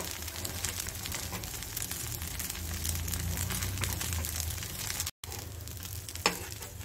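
A rava dosa sizzling and crackling as it cooks in a non-stick pan, over a steady low hum. The sound cuts out briefly just past five seconds, and one sharp click comes about a second later.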